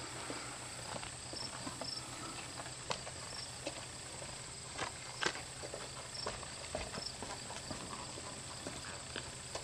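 Scattered footsteps and light knocks on pavement, irregular and sharp, over a steady low hum and a faint high whine.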